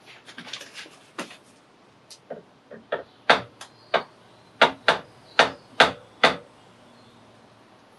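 A hammer lightly tapping a milling machine's adjustable angle plate to nudge it to the angle read on a clinometer: a few soft clicks first, then a dozen or so sharp, irregular taps that get firmer from about three seconds in.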